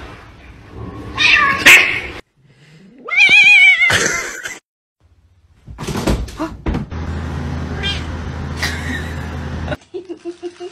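Domestic cats meowing and yowling across a few short clips; the loudest is a long, wavering yowl about three seconds in.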